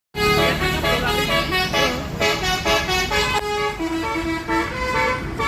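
Bus's multi-tone musical "telolet" horn playing a quick tune of changing notes over a low engine rumble.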